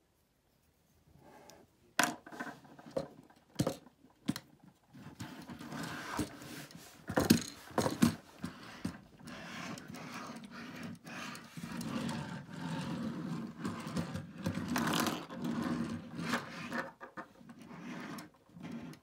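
Plastic Lego pieces being handled: a few sharp clicks in the first seconds. From about five seconds in comes a longer rough, rushing sound with more clicks as the Lego Republic Fighter Tank model is moved about on the tabletop.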